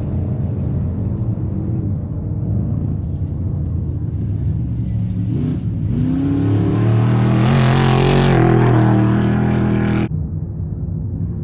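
Off-road race vehicle engines running. About six seconds in, one revs up with a rising engine note and grows loudest as it accelerates past. The sound cuts off abruptly about ten seconds in, leaving a steadier, lower engine drone.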